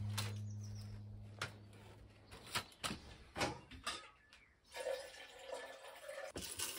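A low hum fades out over the first two seconds. Then come faint clinks of a cup and dishes at a kitchen sink, and a tap runs briefly into the sink about five seconds in.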